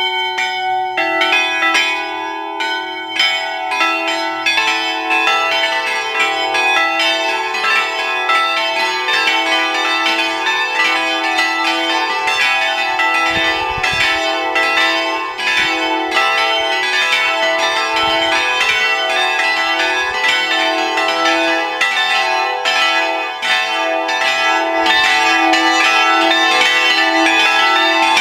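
An automated set of bronze church bells in a steel frame swinging and ringing together, strokes coming several a second and overlapping into one continuous peal.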